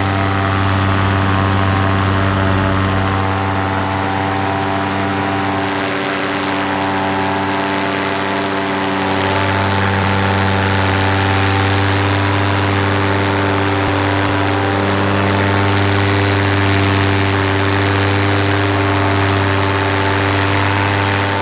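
Paramotor engine and propeller running steadily, a loud, even drone that shifts slightly in pitch about nine seconds in.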